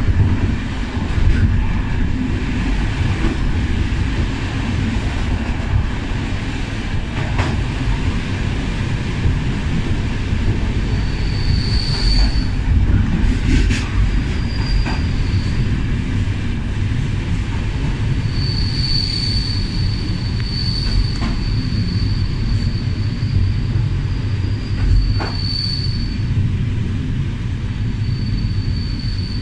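Railway passenger carriages running on the rails, heard from the rear of the last carriage: a steady low rumble with a few sharp knocks from rail joints and points. From about the middle on, a high wheel squeal comes and goes.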